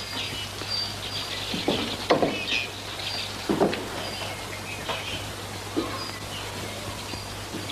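Steady hiss of heavy rain over the low hum of an old film soundtrack, with a few irregular thumps of feet as men run up onto a wooden veranda. Faint short high chirps come through now and then.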